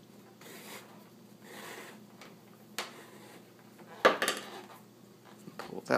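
Leather lace being worked through a baseball glove's finger holes with a metal lacing needle: a couple of soft rustles and a click, then a short, sharp rasp about four seconds in as the lace is pulled through the leather.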